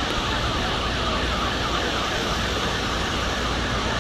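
A distant emergency-vehicle siren in a rapid up-and-down yelp, heard over a steady rushing noise.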